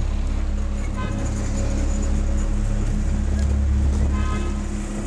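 Street traffic with a steady vehicle hum and a horn tooting briefly twice, about a second in and again near the four-second mark, under background music.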